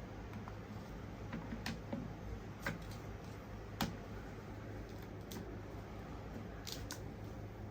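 Scattered light clicks and taps of small hard items being handled, about seven of them at uneven intervals, the sharpest a little under four seconds in, over a low steady hum.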